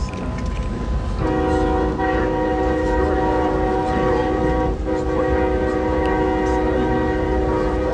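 Acela Express power car's Nathan K5LA multi-chime air horn sounding, heard from inside the first passenger car. It starts about a second in, breaks off for a moment just before five seconds, then sounds a second long blast that runs past the end. The train's low running rumble lies under it.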